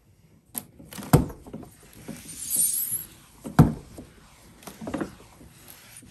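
Cloth wiping a glass vanity mirror wet with sprayed glass cleaner, with a few sharp knocks and clicks of handling, the loudest about three and a half seconds in, and a short hissing rub a little after two seconds.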